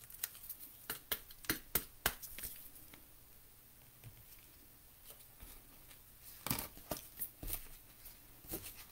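Donruss basketball trading cards being leafed through by a hand in a plastic glove: a scatter of soft flicks and clicks in the first couple of seconds and again after about six seconds, quiet in between.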